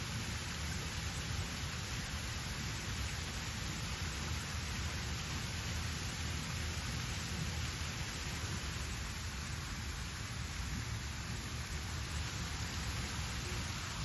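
Fountain jets falling and splashing into their basins: a steady rushing hiss of water, with a low rumble underneath.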